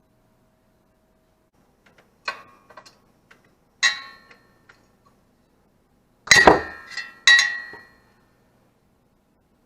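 Metal tools clinking and clanking: about half a dozen sharp metallic hits, each with a short ring. The loudest is a heavier clank about six seconds in, quickly followed by two more.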